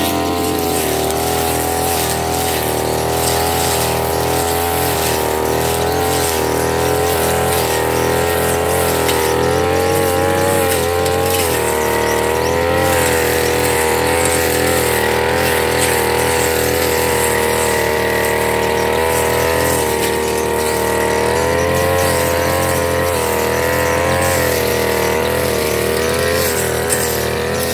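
Backpack brush cutter's small engine running steadily at high revs, its pitch wavering slightly up and down as the cutting head is swept through grass and weeds.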